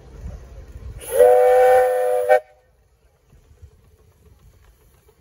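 A miniature railway locomotive sounds one whistle blast of about a second and a half, two notes together, starting about a second in, over a low rumble of the train running.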